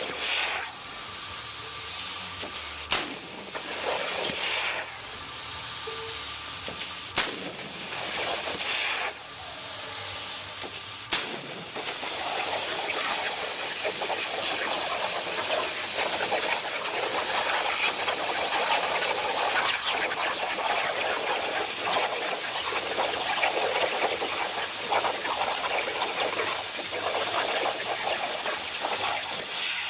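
CNC plasma cutter's arc cutting steel over a water table, which damps most of the noise: a steady hiss. Sharp clicks come about every four seconds in the first ten seconds, then the hiss turns rougher and crackling.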